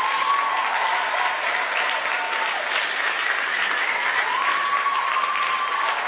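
Theatre audience applauding steadily, with long held cheers from a few voices over the clapping.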